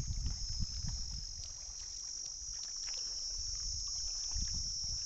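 Steady high-pitched insect drone, with a low rumble on the microphone in the first second or two.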